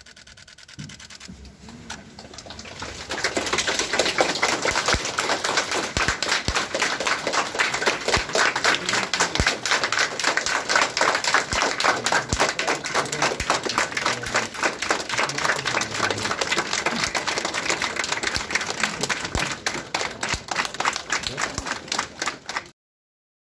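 Crowd applauding: faint at first, then swelling about three seconds in into steady, dense clapping that stops abruptly near the end.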